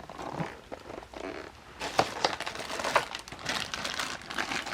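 Rummaging through stored things: crinkling and rustling of packaging mixed with irregular small knocks and clicks.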